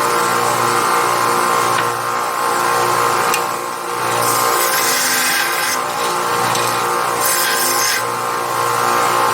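Harbor Freight 4x6 metal-cutting bandsaw running steadily, its blade sawing through metal stock, with a rasping hiss that swells every few seconds.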